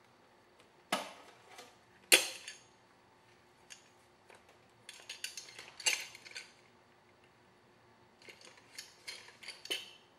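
Small tools and parts being handled and set down on a repair workbench: sharp clicks and clatters of small hard objects. There are two single knocks about one and two seconds in, the second the loudest, then two clusters of lighter clicking in the middle and near the end.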